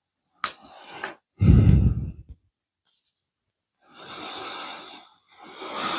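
A person breathing out heavily close to the microphone, a few sighing exhales, with a sharp click about half a second in.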